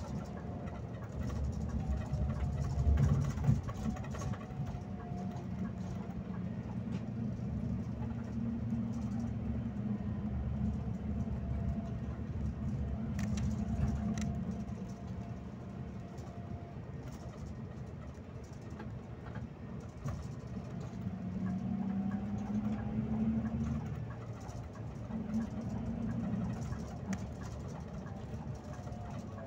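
Scania K360IB coach under way: steady low drone of the engine and drivetrain with road noise, heard from the driver's cab. A faint whine rises and falls in pitch several times.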